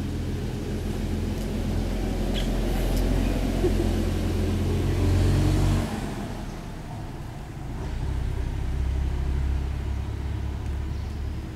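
A vehicle engine running, a low hum that grows louder, drops off abruptly about six seconds in, then swells again.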